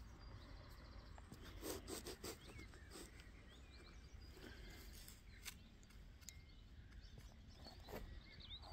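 Faint outdoor field ambience: a low wind rumble on the microphone and small birds chirping now and then, with a few soft rustles and scrapes about two seconds in and again near the end as soil is handled.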